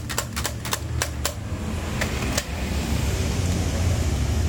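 Hard plastic toy figures clacking against each other and the plastic basket as they are handled: a quick run of clicks in the first second and a half and two more around two seconds in, over a steady low hum.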